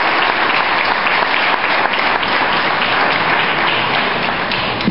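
Congregation applauding: many people clapping together in a dense, steady patter.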